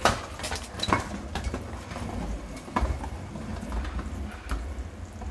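Stunt scooter clattering on the driveway: sharp knocks of the deck and wheels hitting the ground at the start, about a second in and again near three seconds, with lighter rattling between.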